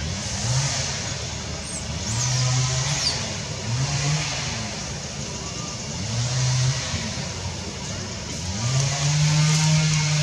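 An engine in the background, revving up and holding about every two seconds over a steady haze of outdoor noise, with a couple of short high chirps about two seconds in.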